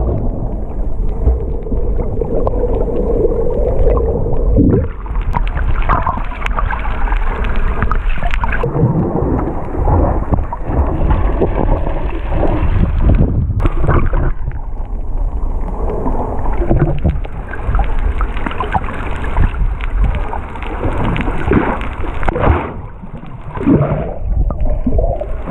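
Muffled underwater sound through an action camera's waterproof housing as it is moved about in the sea near the surface while snorkeling: dull water rumble, sloshing and bubbling, with no treble. The level surges irregularly as the camera dips and moves.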